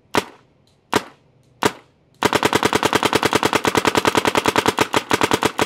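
Planet Eclipse CS3 paintball marker firing: three single pops about 0.7 s apart, then, a little over two seconds in, a rapid string of shots at about a dozen a second as the marker is fired on ramping mode.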